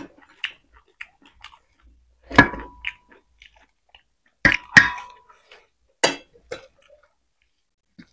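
Close-up eating sounds of people eating rice and roasted pork by hand: chewing and small wet mouth noises, with a few sharp metallic clinks of tableware, two of which ring briefly.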